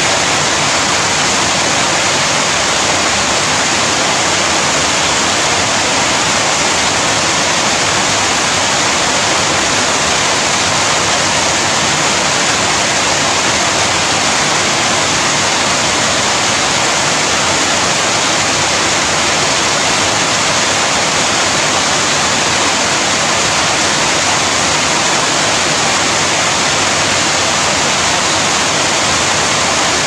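Rain falling steadily: a loud, even hiss that does not change.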